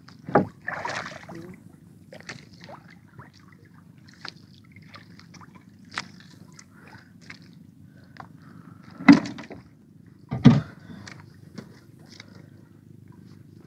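Knocks and thumps of fishing gear and catch being handled in a small boat. Two loud thuds come about nine and ten and a half seconds in, with lighter clicks between, over a steady low rumble.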